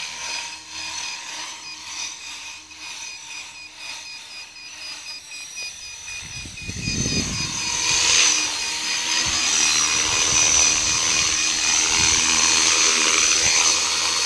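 Electric RC helicopter (T-Rex 450 clone) with its motor, gears and rotor blades whining and whirring. The sound is moderate at first, grows much louder about halfway as the helicopter comes down and lands on the road close by, and then runs on loud and steady while its rotors keep spinning on the ground.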